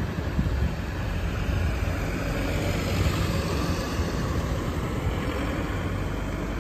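Road traffic at a junction: a steady low engine rumble as a heavy-haul convoy and the vehicles behind it drive away, with tyre and road noise over it.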